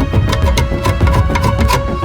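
Background soundtrack music: held tones over a fast, steady percussive beat.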